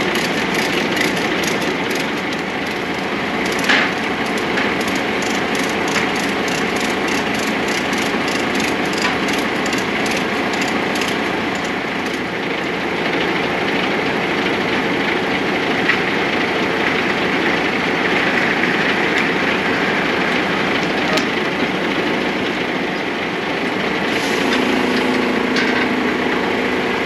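Steady running noise inside a DAF XF truck cab on the move, with a rapid, even ticking over the first ten seconds or so and a few single knocks.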